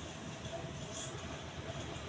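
Majestic deluxe decorative ceiling fan running steadily: an even low rumble with a faint steady hum from the motor.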